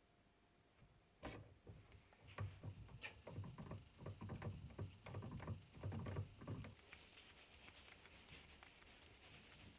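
Handling of a small steel boring head and a hex key: a run of light metal clicks and knocks for about five seconds, then a fainter scraping.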